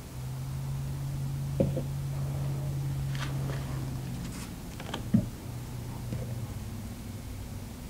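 Quiet workshop room tone with a low steady hum that drops out about halfway, and a few light clicks and knocks as a plastic epoxy mixing cup is handled over a wooden pallet-wood panel.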